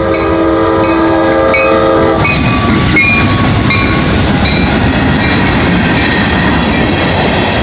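A CSX freight locomotive's multi-note air horn sounds and cuts off about two seconds in. The locomotive and freight cars then pass close by with a loud rumble and wheel clatter. A grade-crossing bell dings about twice a second throughout.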